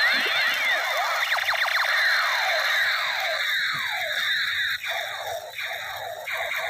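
Toy space gun firing laser zap sound effects: a rapid stream of overlapping falling "pew" sweeps, thinning out after about five seconds.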